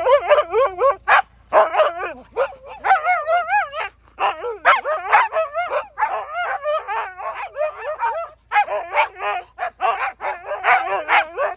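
Three Siberian huskies 'talking' together, in overlapping wavering howls, whines and yips. This is their excited, complaining greeting when the owner comes back home.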